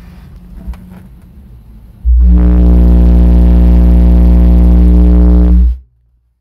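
Six Soundstream XXX 15-inch subwoofers playing a 60 Hz test tone at about 158 dB for an SPL meter reading. After a low hum, the tone comes in about two seconds in, holds one very loud, deep, steady note with a buzzy edge for about three and a half seconds, then cuts off sharply.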